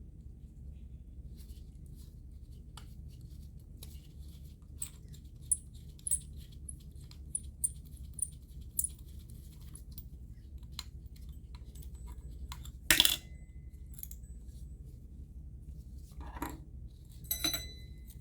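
Small clicks and taps of tools and metal parts being handled during disassembly of a condenser microphone. A louder metallic clink comes about 13 s in and another near the end, each ringing briefly.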